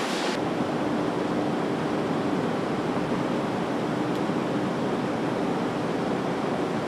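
Steady factory-floor machinery noise from a car assembly line: an even rushing hiss with a faint low hum.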